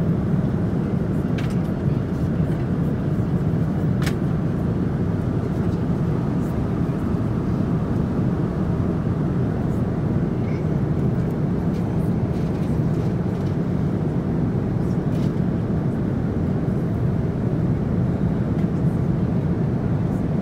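Steady low roar of a jet airliner's cabin in flight, with a few faint clicks and taps on top.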